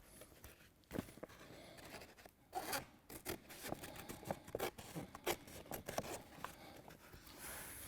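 Scissors snipping through a sheet of roof underlay membrane, with irregular short cuts and the rustle of the plastic sheet being handled.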